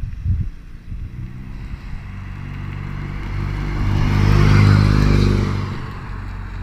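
2013 Hyundai Veloster Turbo's 1.6-litre turbocharged four-cylinder, breathing through a Solo V-Mach 2N1 cat-back exhaust with the resonator in place, heard as the car drives past. The exhaust note grows louder as it approaches, is loudest about four and a half seconds in, then fades as it pulls away.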